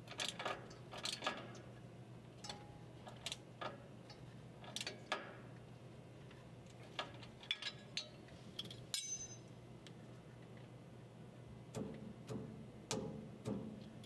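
Light, irregular metal clicks and taps from a hand tool being handled against the cabinet saw's motor mount and belt area, with one sharper click and a brief high ring about nine seconds in.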